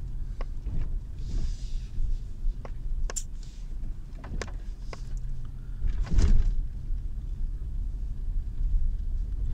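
Inside a car's cabin: steady low rumble of the engine and tyres as the car rolls down a ramp, with a few scattered clicks and one louder thump about six seconds in.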